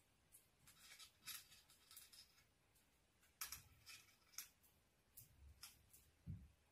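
Faint, scattered crackles and rustles of flower stems and tape being handled and wrapped by hand, with a soft low thump near the end.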